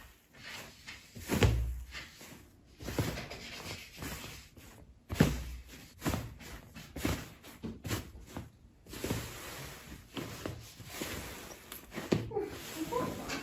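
Hands squishing and poking slime: an irregular string of soft squelches, pops and crackles, the loudest about a second and about five seconds in.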